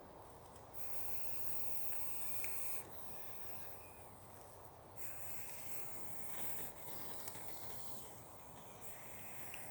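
Quiet outdoor forest ambience: a steady low rumble with stretches of high hiss that come and go every second or two.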